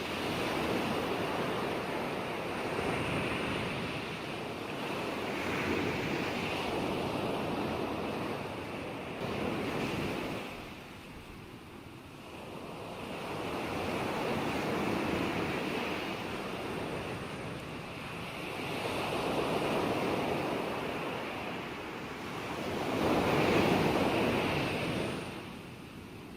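Ocean surf: waves breaking and washing in, swelling and fading every few seconds, with the loudest wave near the end.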